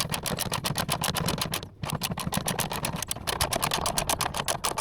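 Ratchet wrench with a socket clicking rapidly, about ten clicks a second, as it backs out an engine mount bolt, with a brief pause about one and a half seconds in.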